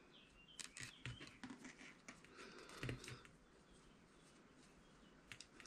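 Faint light clicks and rustles of knitting needles and yarn as stitches are worked, lasting about three seconds, then near silence.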